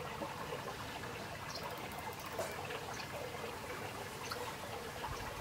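Quiet open-air background: a steady faint hiss with scattered faint, short, high chirps and ticks.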